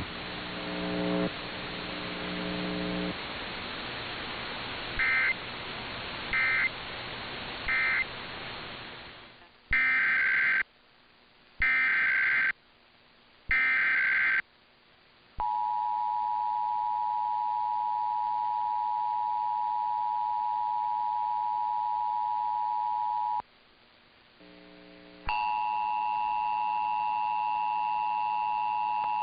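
Emergency Alert System signalling over a hissy broadcast recording. Three short beeps come first, then three loud one-second bursts of screeching SAME data header about a second apart. After that the two-tone EAS attention signal, a steady dual tone just under 1 kHz, holds for about 8 seconds. A few seconds later another steady attention tone starts and continues.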